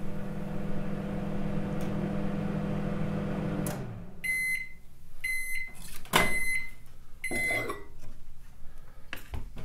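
Microwave oven running with a steady hum that cuts off after about three and a half seconds, then beeping four times about a second apart as the cooking cycle ends. A couple of clicks among the beeps as the oven door is opened.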